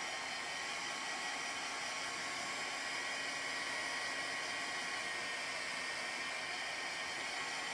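Handheld hot-air dryer running steadily, a constant blowing hiss with a faint motor whine, drying a freshly applied first layer of ink on a fabric apron.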